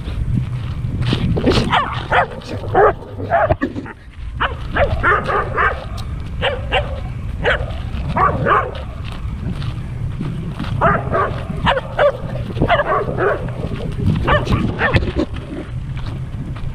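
Dogs barking in short bursts, over and over, as they chase and play-fight, with a steady low rumble underneath.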